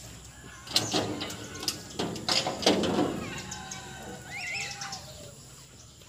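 Several sharp metal clunks and knocks, about one to three seconds in, as a person climbs onto the Case 580 Super M backhoe loader's step and reaches into its cab. Birds chirp in the background.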